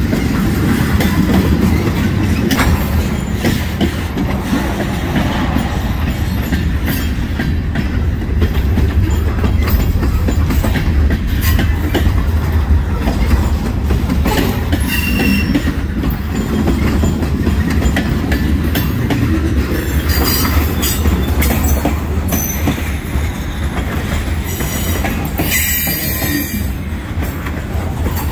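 Freight cars of a Canadian National train rolling past close by: a steady rumble of steel wheels on rail with clicking over the joints. There is a short, high wheel squeal about halfway through, and more squealing near the end.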